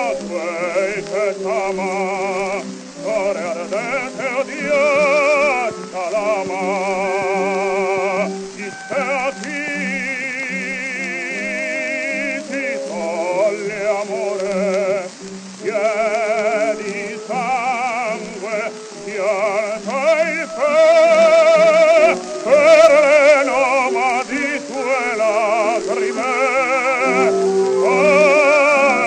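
Early acoustic 78 rpm gramophone recording of a song for baritone and orchestra: melodic phrases with strong vibrato, thin and tinny with no deep bass, over steady surface hiss and crackle.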